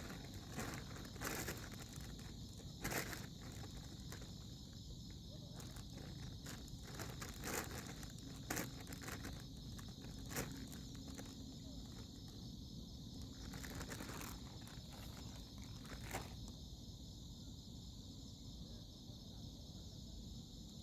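Steady high-pitched insect chorus, with scattered sharp clicks and knocks of handling or footsteps every second or two until about 16 seconds in.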